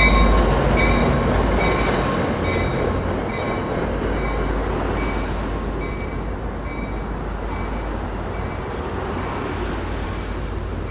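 The bilevel passenger cars of an Amtrak San Joaquin train rolling slowly past along the platform, a steady rumble of wheels on rail that grows gradually quieter as the train slows. A faint high tone recurs about every two-thirds of a second throughout.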